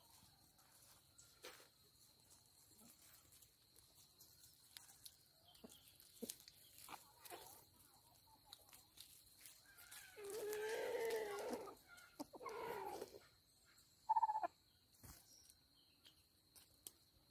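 Chickens calling: a pitched call of nearly two seconds about ten seconds in, a shorter one straight after, and a brief call near fourteen seconds. Faint clicks and rustles fill the rest.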